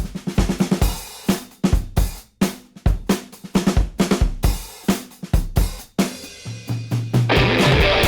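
Rock music with a drum kit playing alone: kick, snare, hi-hat and cymbal hits. Near the end, sustained bass and electric guitar come in.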